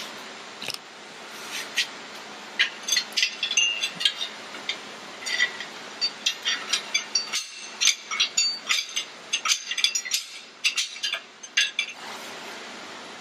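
Metal hand tools clinking and tapping against the engine block and main bearing cap as the rear main cap bolts are loosened and the cap is worked free: a long run of sharp metallic clicks and clinks, coming quicker in the second half.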